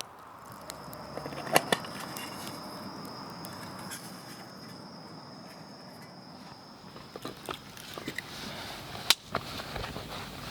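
Hand work while lighting a fire with char cloth: a few sharp clicks and light scrapes, the loudest about a second and a half in and again near the end, over a steady high-pitched whine that stops a little after halfway.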